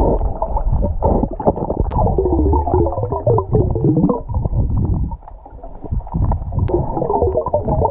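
Muffled underwater sound picked up by a submerged action camera: water churning and bubbling around it as a swimmer moves, with some warbling tones in the middle. It goes quieter for a moment near the end.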